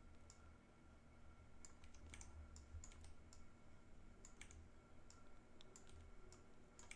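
Faint, irregular clicking of a computer mouse and keyboard, roughly two or three clicks a second, over a low steady hum.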